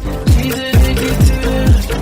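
Electronic dance music track with no vocals: a deep kick drum that drops in pitch on each stroke, about two beats a second, over sustained synth tones.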